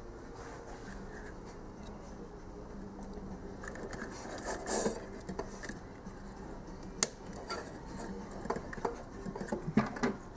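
Hands handling and fitting parts onto a plastic toy quadcopter: plastic rubbing and scraping, with scattered sharp clicks as the body creaks. The loudest clicks come about seven seconds in and near the end.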